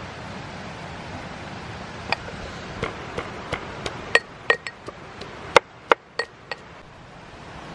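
Metal mortar and pestle clinking as garlic cloves go in: about a dozen sharp, ringing knocks, irregularly spaced, starting about two seconds in and ending before the last second. A steady hiss lies underneath.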